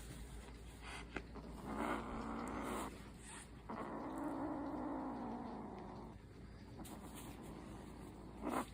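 Cat calling: a meow of about a second, then a longer drawn-out cry lasting about two seconds.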